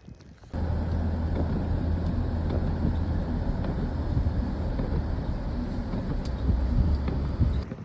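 A vehicle running with a steady low drone under broad rushing noise. It starts abruptly about half a second in and cuts off just before the end.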